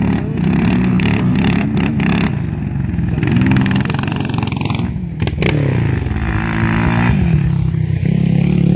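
Sport quad (ATV) engine revving hard as it pulls a wheelie in sand, its pitch climbing and dropping several times as the throttle is worked.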